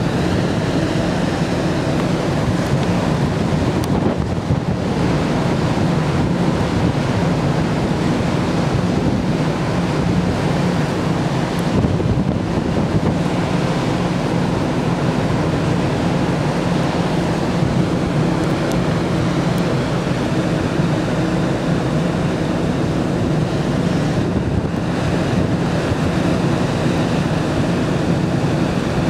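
Wind buffeting the microphone on a moving ferry's open deck, over the rush of sea water along the hull and a steady low drone from the ship.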